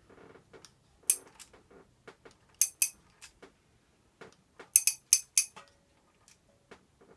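Socket ratchet clicking in short groups of sharp metallic clicks, with lighter clinks between, as a rocker-arm adjusting nut on a pushrod engine is turned to set a hydraulic lifter's lash.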